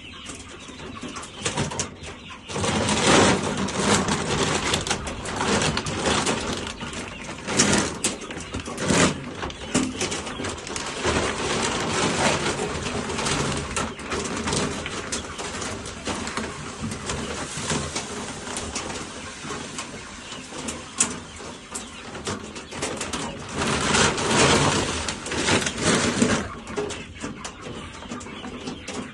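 Chickens clucking and cooing around their feeders, with louder stretches of noise about three seconds in and again near the end.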